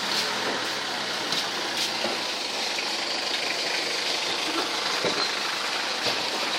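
Steady hum of street traffic, with a few sharp knocks of a cleaver chopping meat on a chopping block.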